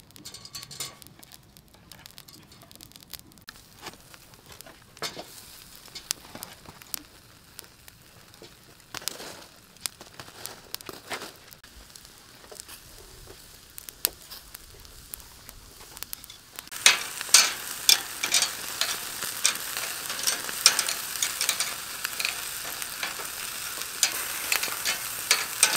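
Marinated chicken drumsticks sizzling over a charcoal grill. Scattered faint pops at first, then about two-thirds of the way through a much louder, dense crackling and popping sets in.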